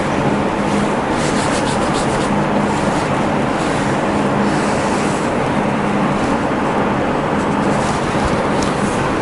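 Steady room noise: an even hiss with a low hum that does not change, and a few faint scratchy rustles at times.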